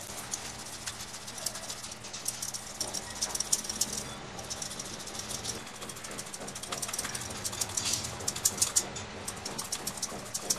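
Soft boiled potatoes being grated by hand on a flat stainless-steel grater: a run of quick, irregular scraping strokes.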